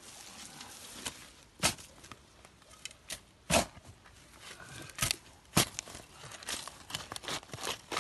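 Sharp thuds and crunches on wet soil and dead leaves: four hard hits, irregularly spaced a second or two apart, with lighter crackling and rustling between them.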